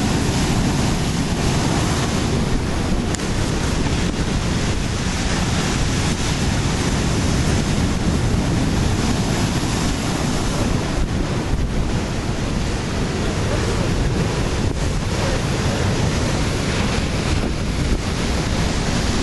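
Ocean surf breaking and washing over a rocky shore, a steady rushing roar, with wind buffeting the microphone.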